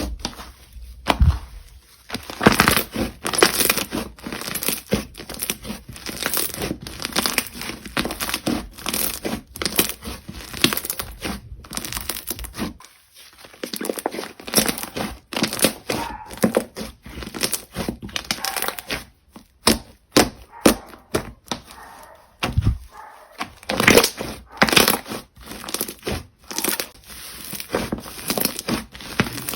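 Slime being squished, stretched and pressed by hand, with dense irregular crackling and popping. It pauses briefly about 13 seconds in and again about 19 seconds in.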